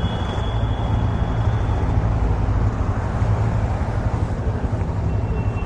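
Motorcycle engine running with a steady low rumble, under an even rush of wind noise.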